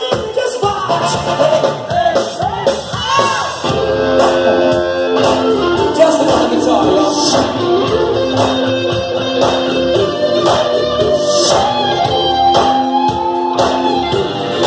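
Live band playing loud through a PA: electric guitar, bass and drums, with a singer's voice gliding over the first few seconds and held notes after that.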